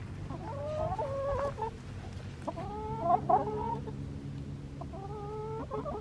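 Domestic hens clucking and calling, three drawn-out, wavering calls about a second apart.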